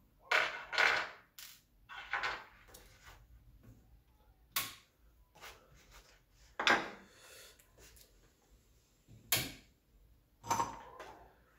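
Workbench handling noise: a small metal laptop hinge and a screwdriver being put down and moved about on a desk next to a plastic laptop lid. There are about seven separate knocks and clatters, the two loudest within the first second and the rest spaced a second or two apart.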